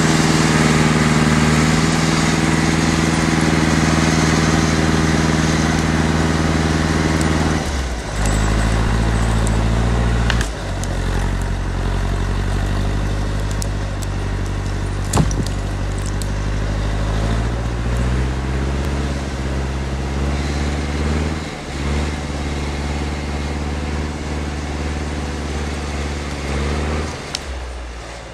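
John Deere 440A cable skidder's diesel engine working under load as it drags a hitch of logs through snow. The engine note drops about eight seconds in and shifts up and down several more times, with one sharp knock near the middle, and grows fainter toward the end as the machine pulls away.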